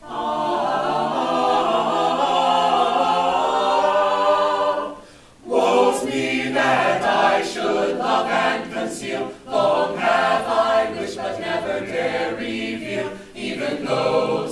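Small mixed choir of men and women singing a cappella in harmony: one long held chord, a brief break for breath about five seconds in, then the singing goes on with moving notes.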